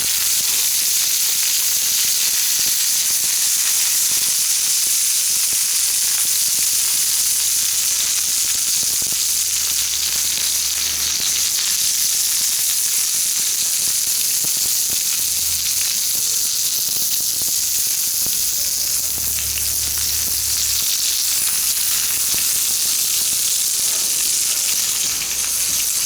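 Jumbo shimeji mushrooms sizzling in olive oil over a wood campfire: a steady, even hiss with faint scattered crackles.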